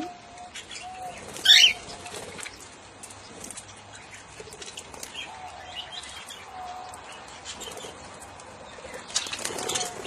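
Flock of budgerigars chattering in short high chirps and fluttering their wings around a hand-held feed cup, with one loud shrill call about a second and a half in and a burst of wing-flapping near the end.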